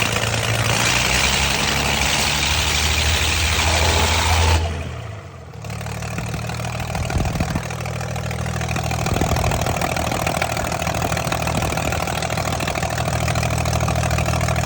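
Heavy engine running, suspected of a cylinder misfire. It is loud for the first few seconds, its sound falls away briefly about five seconds in, then it settles into a steady idle.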